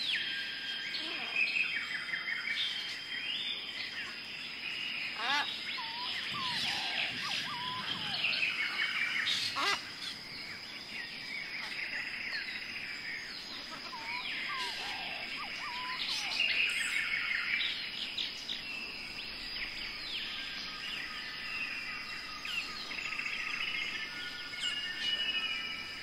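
Birds calling and chirping in a busy mix of short whistled chirps and rising-and-falling calls, over a steady high-pitched tone.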